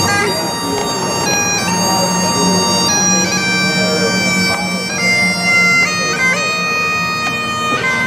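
Bagpipes playing a tune, the chanter's held notes stepping up and down over a steady drone.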